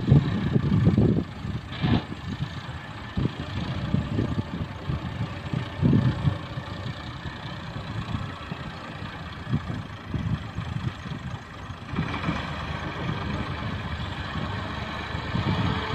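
Diesel engines of a Massey Ferguson 260 tractor and a wheeled excavator running as the tractor hauls a loaded trolley through loose sand, with uneven low rumbling surges. About twelve seconds in, the engine note becomes louder and steadier.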